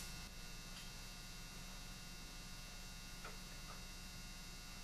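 Steady low electrical mains hum, with two faint small clicks a little past three seconds in from screwdriver work on the revolver.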